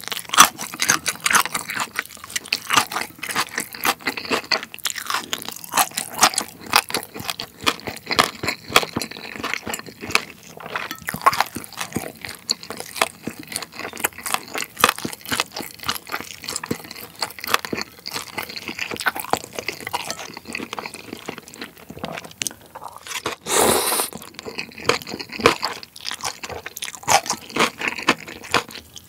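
Close-miked chewing and crunching of chewy spicy noodles mixed with raw shredded carrot and vegetables, a steady run of wet crunches and clicks, with one brief louder rush of noise near the end.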